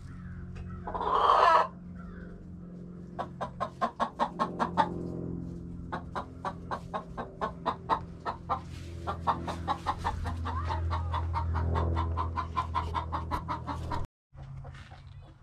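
A hen clucking in quick rhythmic runs of clucks, over the steady low hum of an idling tractor engine. A short loud rush of noise comes about a second in.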